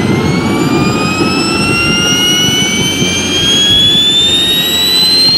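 PBS TJ-40 small turbojet engine on a ground run, its whine rising steadily in pitch as it spools up, over a loud low rumble of exhaust.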